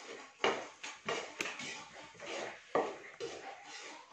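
Metal spatula scraping and knocking against a pan as flour is stirred and toasted over a wood fire, in a handful of irregular strokes with one sharp click about a second and a half in.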